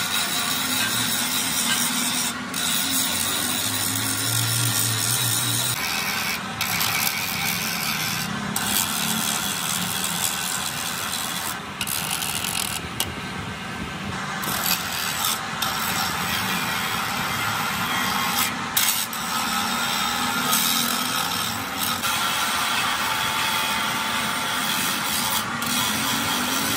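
Long-shaft grinder with an abrasive disc grinding the inside of a Massey Ferguson tractor differential housing: a steady metal-grinding hiss, broken several times by brief gaps.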